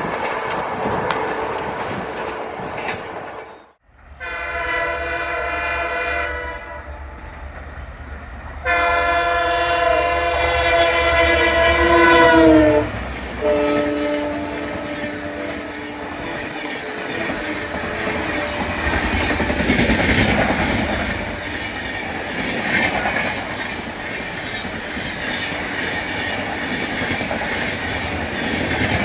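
Indian Railways EMD diesel locomotive sounding its multi-tone horn in two long blasts over a low engine rumble; the second blast drops in pitch at its end and a short, lower blast follows. The train then clatters past with wheels running over the rail joints.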